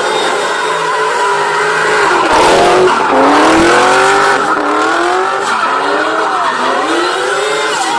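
BMW E30 3 Series car engine revving hard, its pitch rising and falling several times as the throttle is worked. Tyres squeal and skid noisily from about two to four seconds in.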